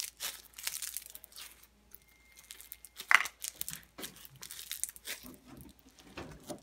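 Clear slime packed with bingsu beads (small plastic beads) being squeezed and pressed by hand, giving many irregular crunches and crackles, one louder pop about three seconds in.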